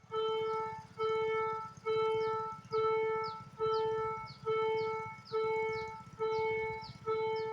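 Level-crossing warning bell ringing in a steady repeating pattern, a little more than one ring a second, each ring a held tone that fades slightly before the next, signalling an approaching train. A low steady rumble sits underneath.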